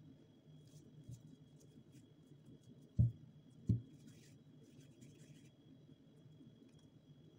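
Two dull thumps less than a second apart, about three seconds in, among faint light clicks and scrapes of things being handled.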